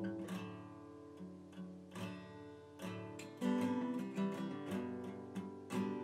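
Background music on acoustic guitar: plucked notes and strummed chords, growing fuller and louder about halfway through.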